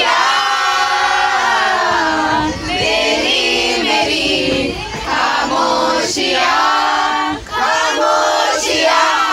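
A group of people singing a song together with long held notes, several voices at once.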